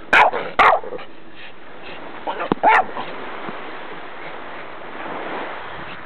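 Norwich terrier barking: two sharp barks in quick succession at the start, then another about two and a half seconds later.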